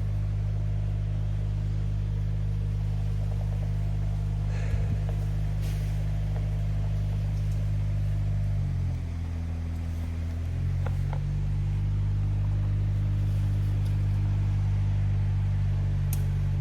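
Compact loader's engine running steadily. About nine seconds in its note shifts and dips for a couple of seconds, as under a change of load or throttle, then settles back.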